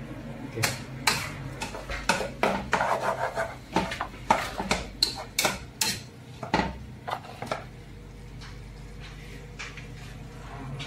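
Cookware clatter as a steamed fish is lifted out of a frying pan with a wooden spatula and set in a plastic dish: a quick run of knocks, scrapes and clinks for about seven seconds, then only a steady low hum.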